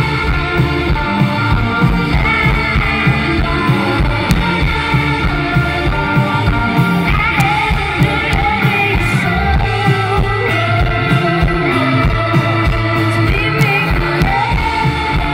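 Live rock band playing an extended, loud jam with drums and a steady beat, and a woman singing over it at times.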